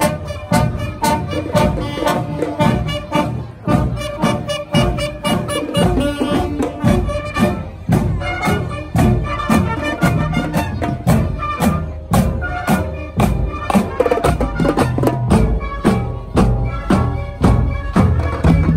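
Marching band playing while marching: trumpets, trombones and a sousaphone playing a tune over a steady beat of snare drums, bass drums and crash cymbals.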